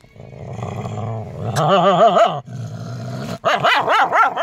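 Mother dog growling low and steadily, then breaking into a wavering, rising-and-falling yowl and a run of shorter yowling barks near the end. It is a protective warning at a person close to her newborn puppies.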